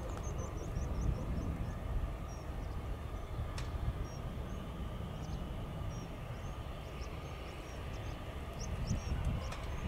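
Steady low rumble of distant jet aircraft engines with a faint held whine, while small birds chirp in short high notes throughout. A single sharp click about a third of the way through.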